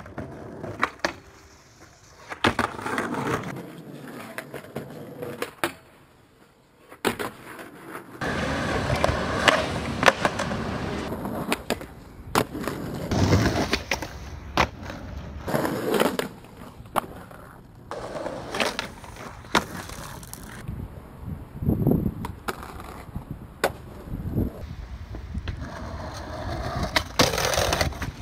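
Skateboarding sounds from several short clips: wheels rolling on pavement, sharp pops and clacks of the board, trucks grinding along a round rail and along a concrete ledge, and board landings.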